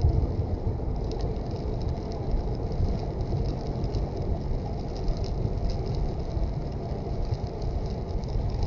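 Car driving on a highway in the rain: a steady low rumble of road and engine noise, with faint scattered ticks of rain over it.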